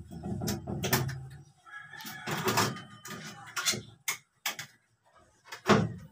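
White plastic grille cover of a ceiling exhaust fan being handled and pushed into its frame: a string of plastic clicks and knocks. A brief high chirping comes about two to three seconds in.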